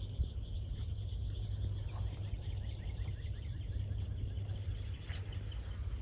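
Outdoor ambience: a steady low rumble of wind on the microphone, with a faint high trill and a run of soft bird chirps.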